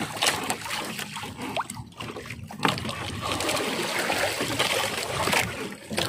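Wet fishing net being hauled hand over hand into a boat, with water dripping and splashing off the mesh in irregular spatters.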